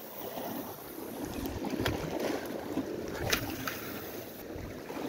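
Sea washing and splashing against a rocky shore, with wind on the microphone and a few brief sharp sounds about two and three seconds in.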